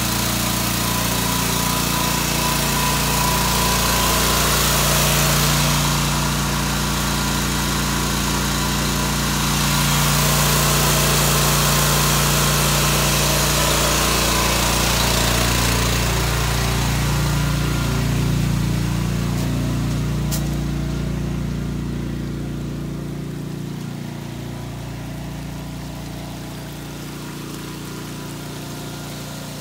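BCS 749 two-wheel tractor's engine running steadily while driving its water pump attachment to pump water. The sound grows gradually fainter over the last third.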